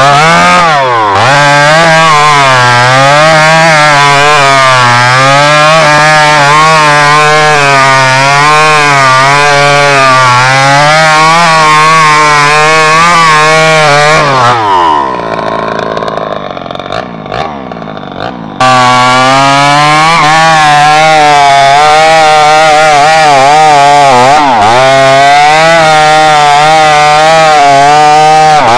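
Two-stroke chainsaw cutting into a tree trunk at full throttle, its engine note wavering and dipping as the chain loads up in the wood. About halfway through, the engine falls away to a lower, quieter note for a few seconds, then comes back suddenly at full speed.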